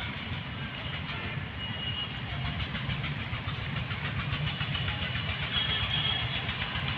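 A steady low engine rumble, with faint brief high tones above it twice.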